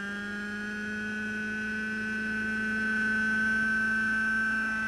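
Radio-controlled model helicopter's small glow-fuel engine and rotor running with a steady high-pitched drone. The pitch creeps up slightly near the start, and the sound grows a little louder about three seconds in as the helicopter lifts off the grass into a low hover.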